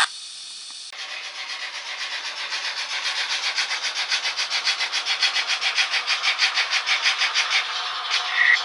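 Märklin HO model steam locomotive's digital sound playing rhythmic steam chuffs, starting about a second in and speeding up and growing louder as the engine pulls away.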